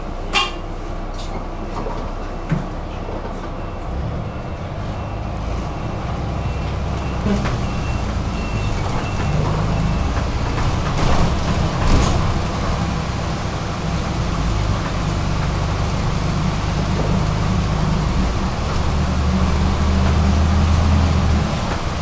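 Bus engine drone heard from inside the cabin, growing slowly louder and shifting in pitch a few times as the bus pulls along. A sharp knock comes about half a second in, and a faint high beep repeats through the first ten seconds or so.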